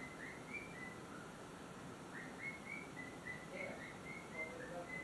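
A young parrot chirping faintly: a string of short, high chirps, about three a second, pausing about a second in and then running on.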